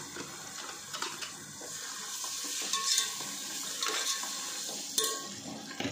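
Tomato-and-onion masala with freshly added ginger-garlic-green chilli paste sizzling in an aluminium pot while a metal slotted spoon stirs it, scraping and knocking against the pot. The sharpest clink of spoon on pot comes about five seconds in.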